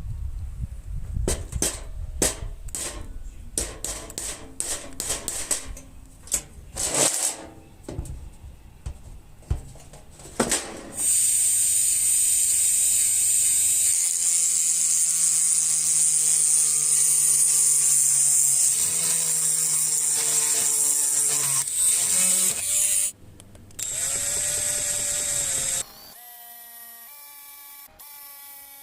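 Clicks and knocks of metal parts being handled, then a handheld power tool runs against the thin sheet metal of a tin for about twelve seconds, with a falling whine under load. It stops briefly, runs again for about two seconds, and cuts off.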